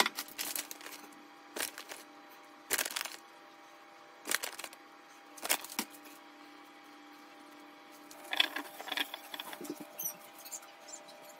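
Short rustles and scrapes of food being handled with a utensil on a cutting board, about six separate bursts a second or more apart, with a longer stretch of them near the end, over a steady low hum.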